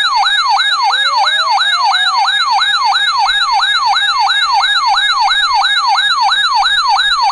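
Electronic siren-style alert tone sounding ahead of a severe thunderstorm warning: a fast yelping sweep, about three a second, over a steady high tone, with a slower rising glide joining in during the first two seconds.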